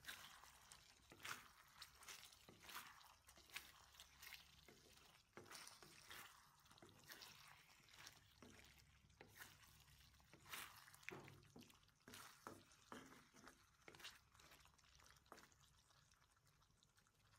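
Faint wooden spatula stirring pork and vegetables in thick sauce in a wok: irregular scrapes and clicks against the pan with wet squelching, thinning out near the end.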